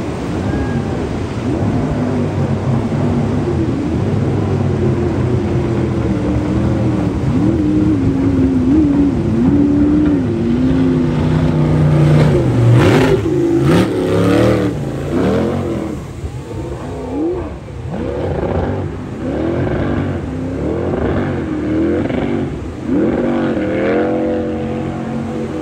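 Racing jet boat's engine at high revs as it passes, its pitch swinging up and down with the throttle; loudest about halfway through as the boat goes by close, then fainter with repeated rev swoops as it pulls away.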